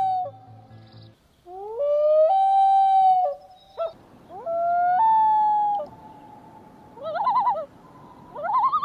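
Loon wailing: three long calls, each rising in pitch and then holding steady, followed near the end by two short, quavering tremolo calls.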